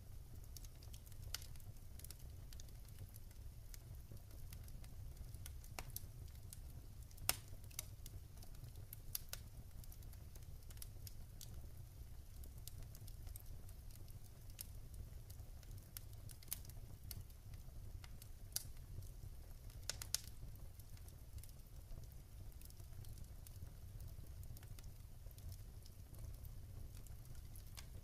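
Wood logs burning in a fireplace, crackling with scattered sharp pops and snaps, the loudest about seven seconds in, over a steady low rumble.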